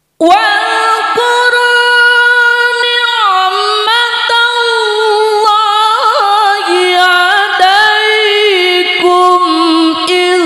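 A male qari chanting Qur'anic recitation (tilawah) in one long unbroken melismatic phrase into a microphone, starting abruptly after a silent breath pause. His held notes carry ornamental turns and step gradually lower in pitch.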